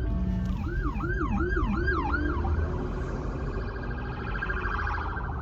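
Police car siren passing: a run of quick rising-and-falling wails about a second in, switching to a fast warble that fades toward the end, over a steady low rumble.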